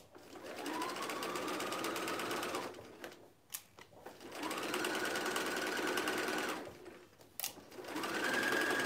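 Electric sewing machine stitching in three separate runs, each winding up from a stop to a steady whine and then stopping. A short click is heard in each of the two gaps between runs.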